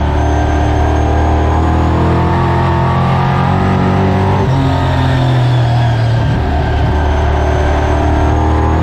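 Late Model race car's V8 engine running hard at racing speed, heard from inside the cockpit, its pitch rising and falling as the driver accelerates and lifts around the oval.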